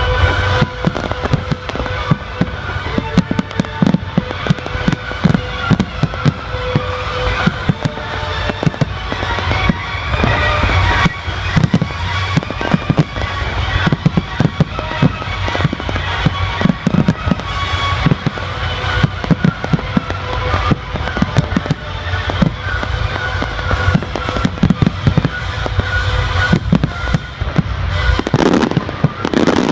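A fireworks display finale: a rapid, continuous barrage of firework bangs and bursts, over the show's musical soundtrack played through loudspeakers. The bangs come several times a second, and there is a louder cluster of bursts near the end.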